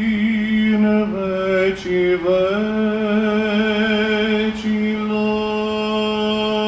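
Male chanting of the Orthodox liturgy: long held sung notes with small steps in pitch, in Byzantine-style chant.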